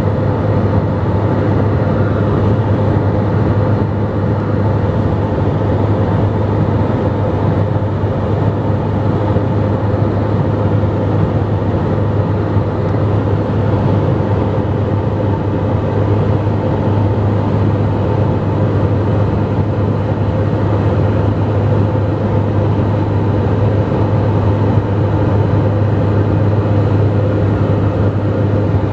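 Steady cabin drone of a Dornier 228's twin turboprop engines and propellers in flight: a strong constant low hum with a few steady higher tones over an even rushing noise.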